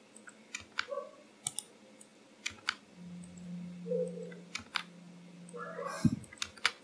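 Scattered single clicks of a computer mouse and keyboard, roughly one every half second to a second. A low steady hum runs through the middle, and a dull thump comes about six seconds in.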